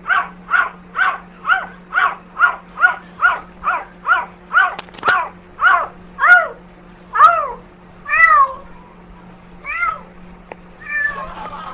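A cat meowing over and over: quick short meows about two to three a second at first, then slower, longer, louder meows roughly once a second from about six seconds in, ending in a ragged one.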